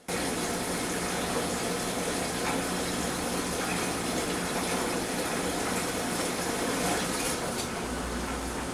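Kenmore front-load washer in its rinse cycle with an electric dryer running alongside: a steady whooshing noise with a low hum.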